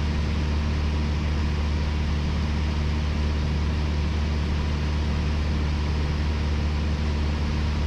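Piper Warrior's four-cylinder Lycoming engine and propeller droning steadily in cruise, heard inside the cockpit, with a constant hiss of air over it.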